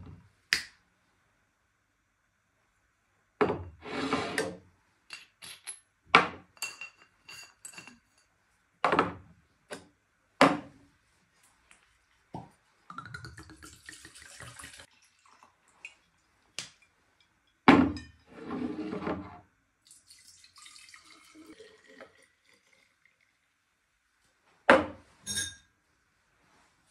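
Bar-prep handling sounds: bottles, a steel cream whipper and utensils knocked and set down on a counter, making sharp clinks and thuds with quiet gaps between. Around the middle, gin is poured into a plastic measuring jug with a splashing trickle.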